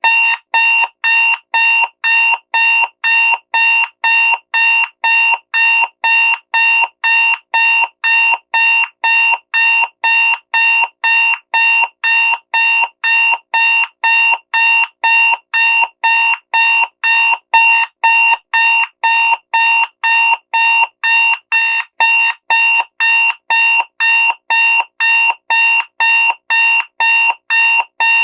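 Loud digital alarm clock beeping: short, identical high-pitched electronic beeps repeating evenly, about two a second. It is the alarm going off once a countdown has reached zero.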